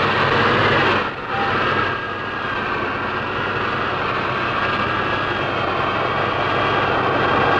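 An engine running steadily: a loud rumble with a steady high whine over it, dipping briefly about a second in.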